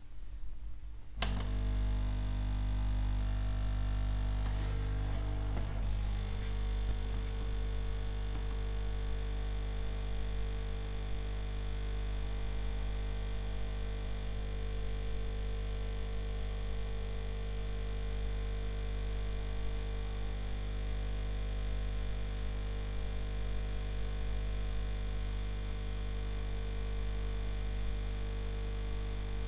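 Hot air rework station switched on with a click about a second in, its fan then running with a steady hum while it heats a small SMD capacitor off the circuit board. The pitch shifts a little over the first few seconds, then holds steady.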